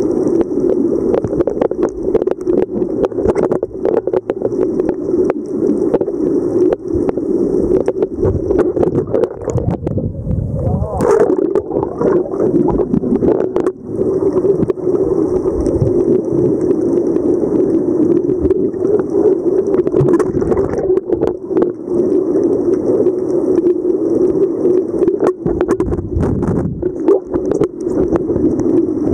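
Muffled underwater noise picked up by a camera in a waterproof housing: a steady, dull rush with many scattered sharp clicks and knocks.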